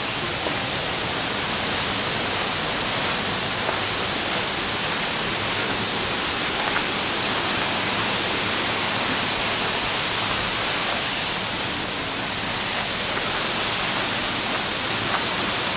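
A waterfall's steady rush: an even, unbroken hiss with no rhythm or tones.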